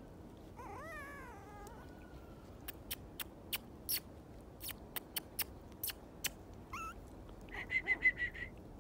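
Yorkshire Terrier puppies whining: a wavering whine about half a second in, a scatter of sharp short clicks through the middle, then a short rising yelp and a rapid run of high whimpers near the end, the loudest part.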